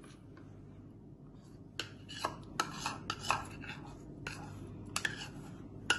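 A metal spoon scraping and clinking against a bowl as thick red pudding mixture is scraped out into a glass dish. The clinks begin about two seconds in and come irregularly.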